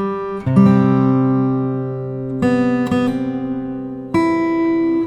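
Acoustic guitar music: slow strummed chords, a new chord every second or two, each left to ring and fade.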